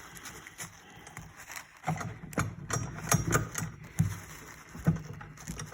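Irregular clicks and knocks of metal parts as a stubborn part is worked loose by hand from a KitchenAid stand mixer's gear housing. The knocks come unevenly from about two seconds in.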